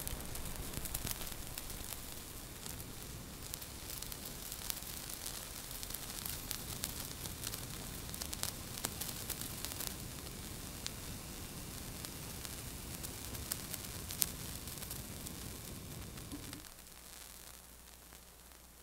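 Gas burner flame hissing under a glass test tube, with scattered faint crackles and ticks as intercalated graphite expands in the heat. The hiss drops away near the end as the flame is turned down.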